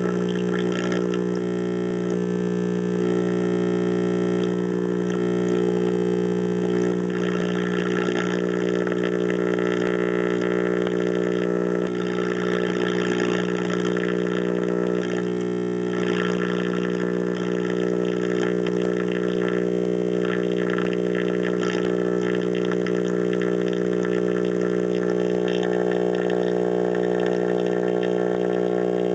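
General Electric tube radio's speaker putting out a loud, steady mains hum, with faint broadcast sound shifting underneath it. The hum is the sign of a bad filter capacitor, which drowns out the station.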